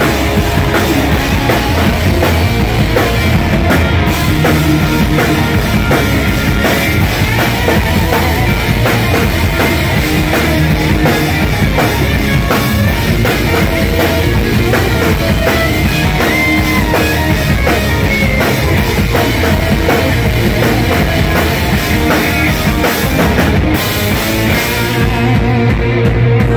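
Live rock band playing an instrumental passage on electric guitar, bass guitar and drum kit, loud and steady. Near the end the high cymbal wash drops away.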